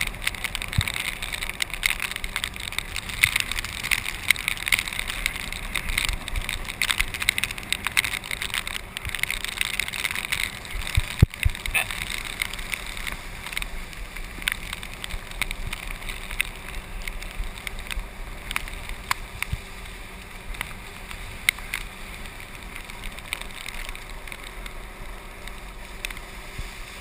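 Golf cart driving along wet roads and trail: a steady hiss of tyres on wet ground and wind, with many small ticks and splashes and one sharper knock about eleven seconds in. The hiss eases off in the second half.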